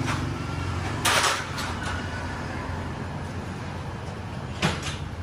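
A steady low mechanical hum of a running motor, with two short rushes of noise, about a second in and again near the end.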